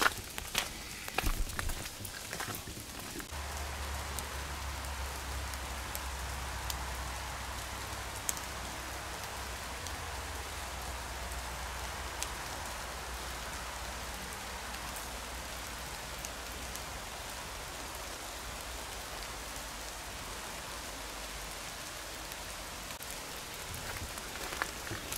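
Steady rain falling through the forest, an even hiss. Footsteps crunch on a gravel path for the first few seconds and start again near the end.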